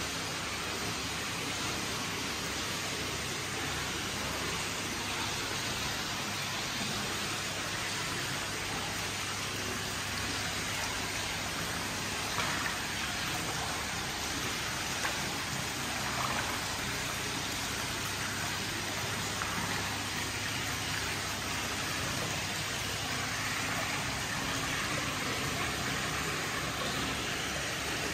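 Hot spring water pouring steadily from a rock spout into an indoor stone bath: a constant splashing rush, with a few small splashes a little before halfway.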